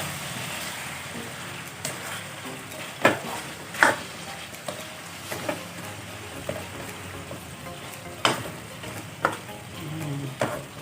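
Chicken pieces sizzling steadily in hot oil with garlic and onion as they are turned to brown the other side, with sharp knocks of a cooking utensil against the pan every second or two, loudest about three, four and eight seconds in.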